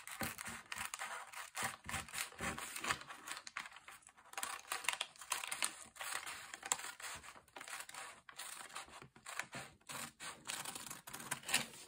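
Scissors cutting through folded paper: a run of repeated snips and crisp paper rustle as the blades close again and again along a marked line.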